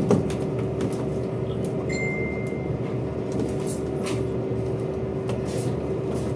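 Washing machine motor running with a steady hum, shaking strongly; the repairer suspects its bearing. A short high tone sounds about two seconds in, over a few light clicks.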